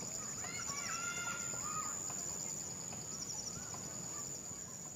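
Outdoor nature ambience: a steady high insect drone with repeating pulsed insect trills, and a few short gliding bird calls about a second in.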